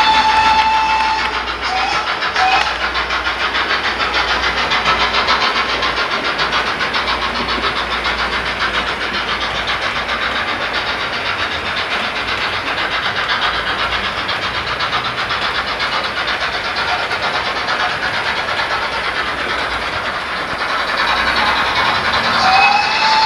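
A GWR 'King' steam locomotive sound recording played through a model's LokSound decoder. A whistle rises and holds at the start, with two short toots about two seconds in. Then come rapid, steady exhaust beats as the engine runs at speed, and the whistle sounds again near the end.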